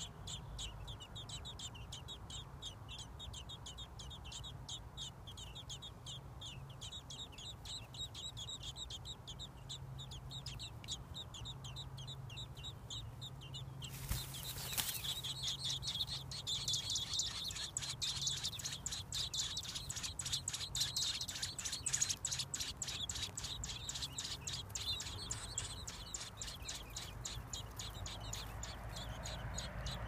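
American robin nestlings begging: rapid, high chirps repeated many times a second, growing louder after a brief rustling burst about halfway through.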